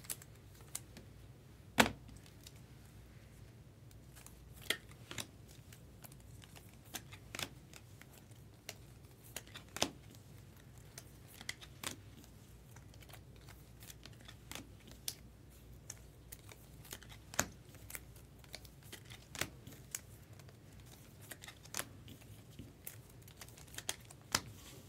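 Trading card packs and cards being handled on a table: scattered sharp clicks and taps with wrapper crinkling, the loudest tap about two seconds in, over a faint steady low hum.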